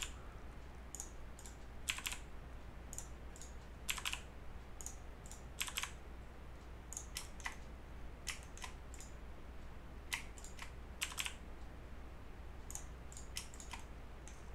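Computer keyboard keys tapped lightly in scattered short clusters, some in quick pairs, as shortcut keys are pressed to move mesh vertices.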